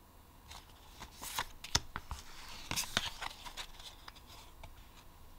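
Pokémon trading cards being handled and slid over one another: a string of sharp clicks and light rustles, busiest between about one and three seconds in.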